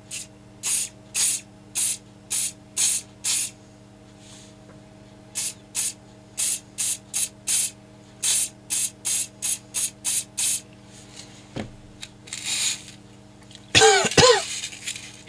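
Aerosol can of extra-firm-hold hairspray sprayed in many short bursts, two to three a second, in two runs, then one longer, softer spray, giving a light dusting over glued model-tree foliage. Near the end comes a brief, louder vocal noise.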